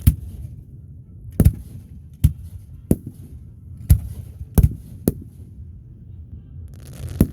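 Aerial fireworks bursting: about eight sharp booms at uneven intervals, some in quick pairs, with a low rumble between them.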